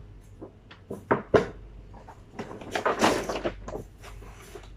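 Gift packaging being handled while a pair of slippers is taken out: two sharp knocks about a second in, then a longer rustle.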